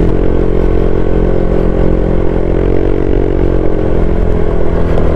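Honda Click 125i scooter's single-cylinder four-stroke engine running steadily under load while climbing a hill, its pitch rising slightly midway and easing off near the end.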